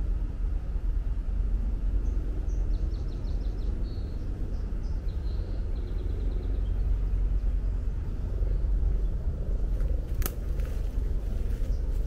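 A steady low rumble, with a small bird trilling faintly in quick repeated high notes through the middle. Near the end, a few footsteps on a path.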